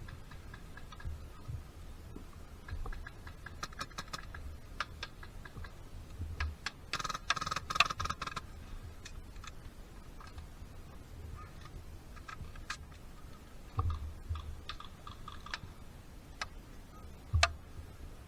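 Airsoft gunfire: scattered single clicks and short strings of rapid clicks, with one louder rapid burst lasting about a second and a half, about seven seconds in.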